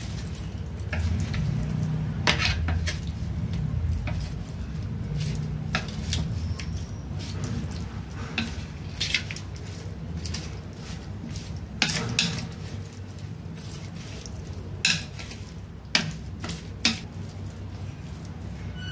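Wooden chopsticks tossing sliced meat on a plate, clicking and tapping against the plate now and then, with a few sharper clicks near the end, over a low background hum.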